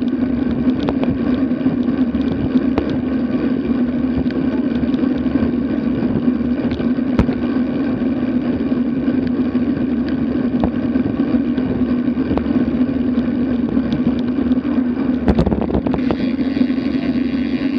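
Steady wind and road noise from a road bicycle rolling at cruising speed, heard through a bike-mounted action camera, with scattered small clicks and knocks from the bike on the asphalt. The noise turns brighter about sixteen seconds in.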